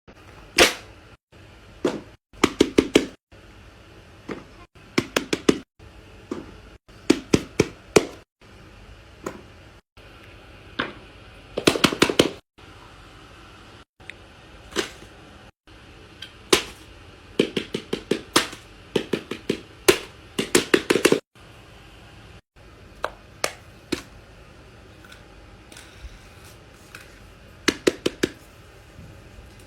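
Pop-it and simple dimple silicone fidget toys being pressed: sharp pops in quick runs of two to five, with short breaks between the runs.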